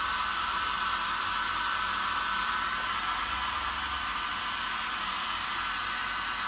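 Handheld heat gun blowing hot air steadily, a rushing hiss with a constant high whine, warming vinyl helmet stripe decals to keep them pliable.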